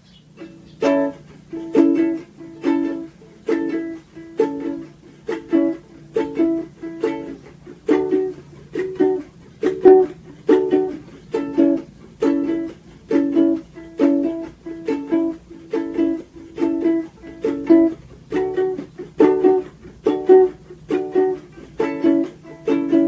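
Ukulele chords strummed slowly in a steady down-up pattern, about two strums a second.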